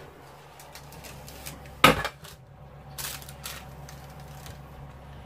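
Metal roasting tin being taken from the oven and set on the worktop: a loud sharp knock about two seconds in, with lighter clicks and knocks and a brief rustle around it, over a low steady hum.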